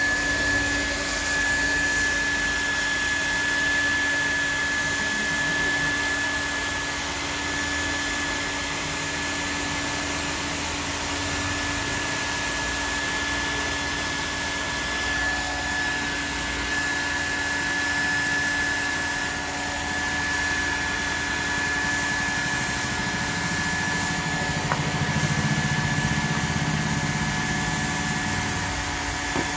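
Hot-air plastic welding gun running steadily, its blower giving a continuous hiss with a steady high whine, while it heats polypropylene welding rod into a tank's corner seam.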